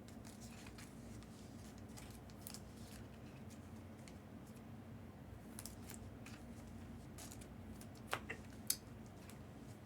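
Faint handling noises from trading-card packs and cards: a few light clicks and rustles, most of them in the second half, over a low steady room hum.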